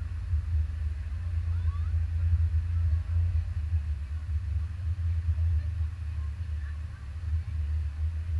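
Stock race car's engine idling with an uneven low rumble.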